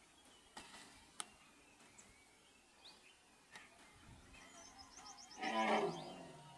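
Wild Asian elephant calling: a pitched, rough call with many overtones that builds over a second or so and peaks loudly for about a second near the end. Faint bird chirps and a couple of light clicks sound before it.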